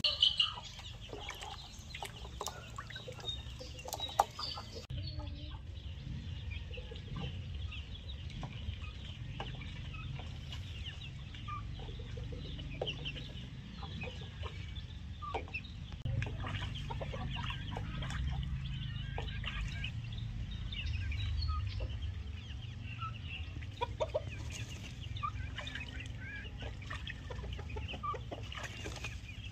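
Backyard chickens clucking, many short calls scattered throughout, over a steady low rumble.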